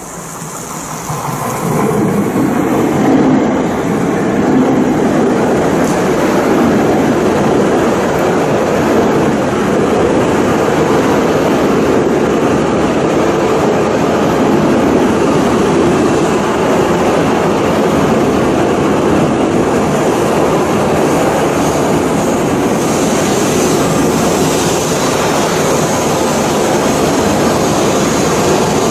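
A train running along the track at the station platform: a loud, steady rolling rush that builds over the first two seconds and then holds.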